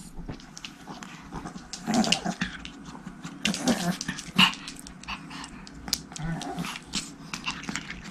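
Pomeranian dogs growling and giving short barks in several bursts, the loudest about four and a half seconds in.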